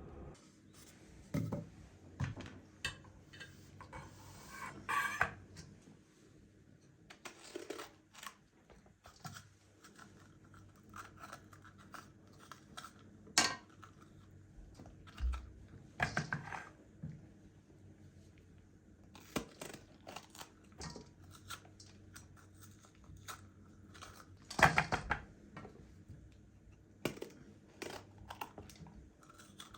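Irregular small household handling sounds: scattered clicks, knocks and brief scrapes and rustles of objects being picked up and set down, the sharpest clatters about 13 and 25 seconds in, over a faint steady hum.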